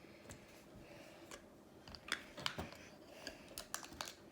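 Lego plastic parts being handled and fitted together: faint, irregular clicks and light rattles as the gyrosphere's clear side pieces are pressed into place around a minifigure.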